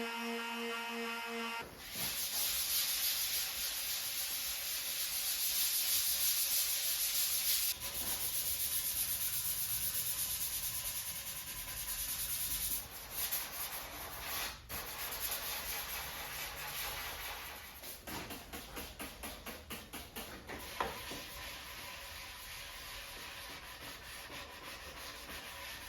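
Sandpaper scratching over the hardened resin hotcoat of a fibreglass surfboard repair: a steady, dense rasping hiss, turning into quick back-and-forth strokes, about four a second, later on. A steady humming tone comes just before the sanding starts.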